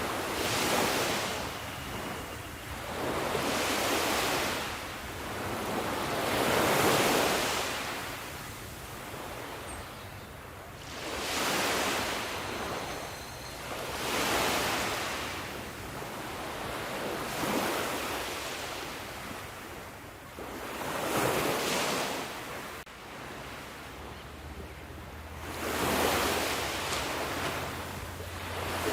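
Ocean waves breaking and washing on the shore, the surf surging and fading in a slow rhythm of a wave every three to four seconds.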